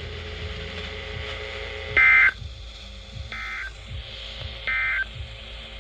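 Emergency Alert System end-of-message (EOM) signal: three short bursts of two-tone digital data warble, each about a third of a second long and a little over a second apart, the first the loudest. It marks the end of the alert message.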